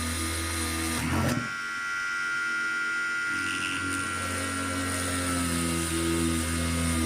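Small high-speed electric rotary tool running steadily as it works a glass-fibre resin board, with a brief dip and change in its whine about a second in.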